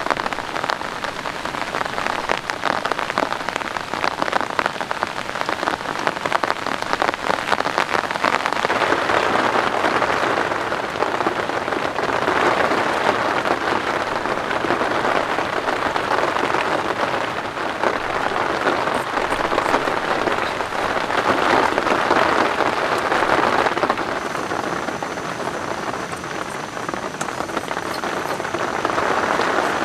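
Heavy rain pouring down steadily in a dense patter of drops. The patter swells and eases every few seconds.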